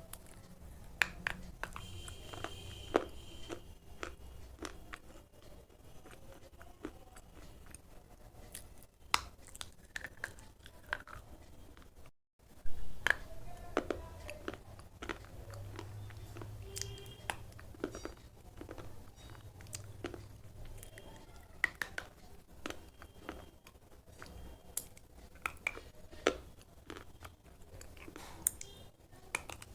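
Slate pencil being bitten and chewed, with sharp, irregular crunches and grinding between the teeth. The sound cuts out for a moment about twelve seconds in, then resumes with a loud crunch.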